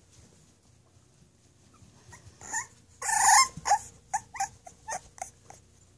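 Four-week-old puppy vocalising while playing with a stuffed toy. A louder drawn-out cry comes about three seconds in, then a run of about seven short, high yips.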